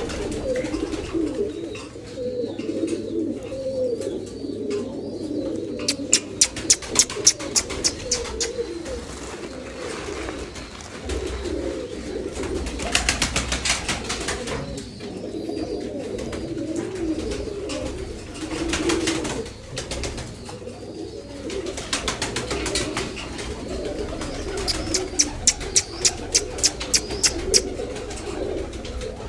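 Flock of domestic pigeons cooing steadily. Runs of rapid wing claps as birds take off come about six seconds in and again near the end, with a few rushes of fluttering wings in between.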